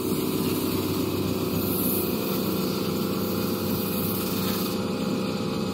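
Cobbler's finishing machine running steadily, a steady hum as its spinning buffing wheel polishes the wax-coated toe of a leather oxford shoe.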